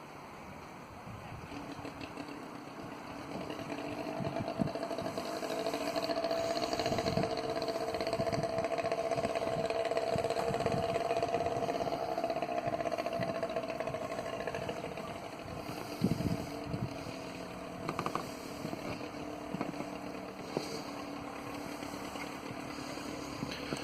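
A passing motor engine, a steady pitched hum that grows louder over several seconds, peaks about halfway through and then fades. A few sharp knocks come in the second half.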